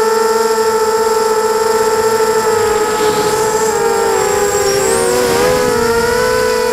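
A 250-size racing quadcopter's brushless motors and propellers whining steadily in flight, heard from on board. About four seconds in, the pitches spread apart and bend up and down as the motors change speed, then settle again near the end.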